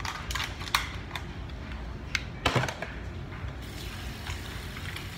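Clicks and knocks of a small plastic bottle being handled, with a louder knock and short rattle about two and a half seconds in, over a steady low hum.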